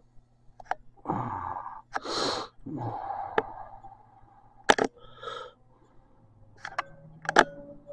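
Cartoon soundtrack heard through a TV speaker: a character's breathy sighs and gasps, several in a row, with a few sharp clicks between them.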